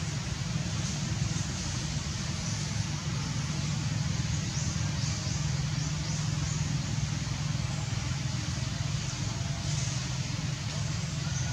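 Steady low rumble with an even hiss above it, unchanging throughout, with a few faint high ticks.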